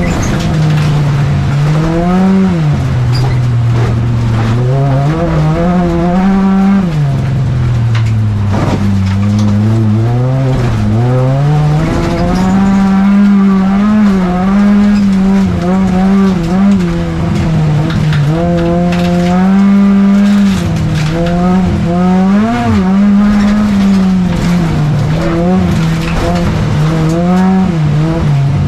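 Volvo 245 folkrace car's engine heard from inside the cabin, driven hard. Its revs rise and fall over and over as the car is pushed round a slippery track.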